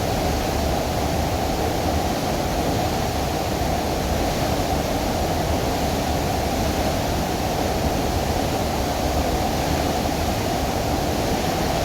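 A very strong waterfall pouring: a steady, unbroken rush of falling water.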